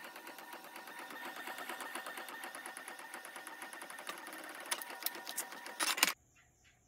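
Canon PIXMA iP2770 inkjet printer printing a page: the print head and paper feed run with a fast, even ticking, with a few sharper clicks near the end. The sound cuts off suddenly about six seconds in.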